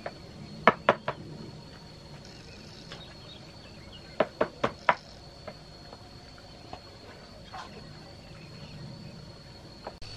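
Sharp knocks or taps: three in quick succession about a second in, then four more a little after four seconds, and a few fainter ones later, over a steady high-pitched whine.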